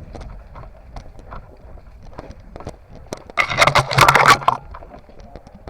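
Footsteps through forest undergrowth with twigs and leaves crackling, then about a second of loud scraping and rustling as branches brush close against the microphone, a little past halfway.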